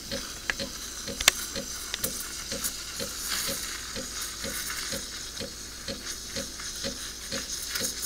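De'Longhi espresso machine's steam wand hissing into milk in a stainless steel jug, foaming the milk. Under the hiss the machine ticks steadily about three times a second, and there is one sharp click about a second in.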